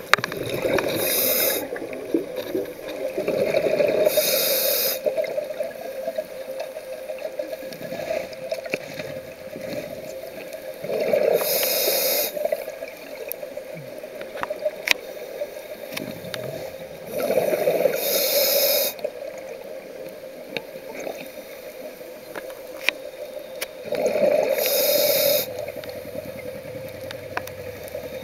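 Scuba diver breathing through a regulator underwater: each breath is a hiss followed by a rush of exhaled bubbles, five breaths about six to seven seconds apart. Faint clicks and crackles sound between the breaths.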